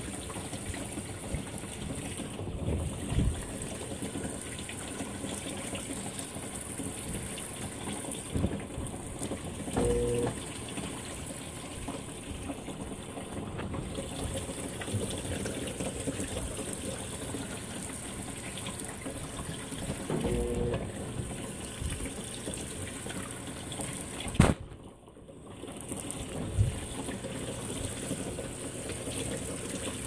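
Water running steadily into a top-load washing machine's tub as it fills. A short low hum comes about every ten seconds. Near the end there is a click and a brief drop in the water sound.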